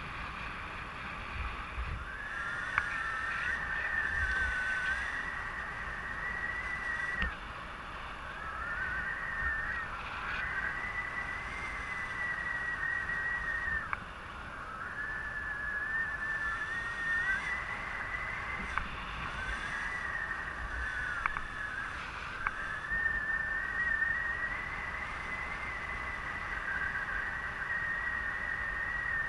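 A wavering high whistle comes and goes in stretches of a few seconds, over low wind rumble, as airflow passes the paraglider and the microphone in flight.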